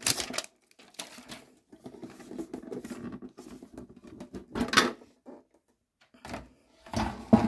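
A metal trading-card tin being handled: scattered clicks and taps with soft rustling, and a sharper knock about five seconds in.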